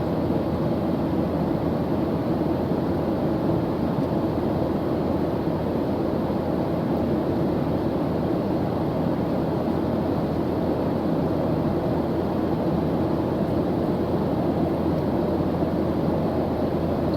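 Airplane engine droning steadily in flight: an even, low rushing noise that doesn't change.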